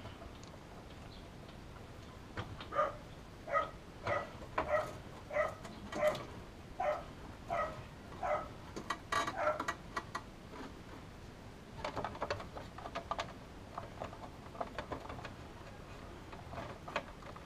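A dog barking in the background: about a dozen barks at an even pace, each a bit under a second apart, for several seconds. After that, a run of small clicks and rattles follows.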